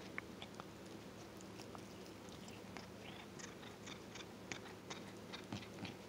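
Domestic cat grooming itself close up: an irregular run of small wet licking and nibbling clicks from its tongue and teeth working through its fur, over a faint steady low hum.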